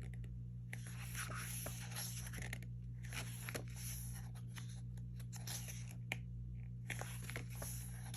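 Glossy pages of a K-pop album photobook being handled and turned: irregular paper rustles and soft clicks, over a steady low hum.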